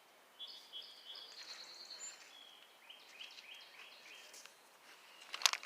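Small birds chirping and singing, in thin high notes followed by a run of short repeated notes, with a few sharp clicks near the end.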